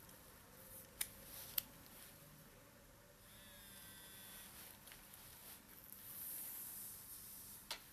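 Faint handling sounds of a Samsung Galaxy S Duos GT-S7562 smartphone held in the hands: sharp little clicks of fingers on its plastic body and buttons, two about a second in and more near the end.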